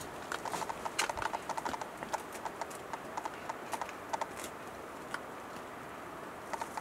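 Male western capercaillie giving its display song: a series of dry clicking notes. They come in a quick run in the first two seconds, then sparser clicks follow, with a few more near the end.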